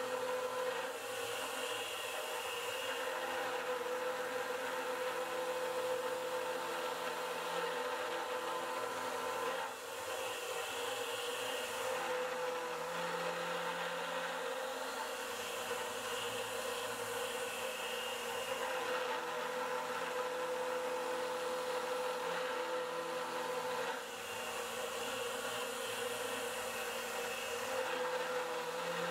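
Converted Precision Matthews PM25MV CNC mill face-milling aluminium with an indexable cutter: a steady spindle whir and cutting noise with a hiss from the nozzle blowing at the cutter, dipping briefly twice as the cut changes.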